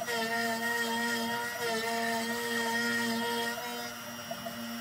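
NymoLabs NBX-5040 CNC router spindle running at 12,000 rpm with a steady hum, cutting a small hole in MDF, along with the whine of the axis motors, which shifts in pitch a couple of times as the moves change. The sound drops a little about three and a half seconds in, when the bit lifts out of the cut.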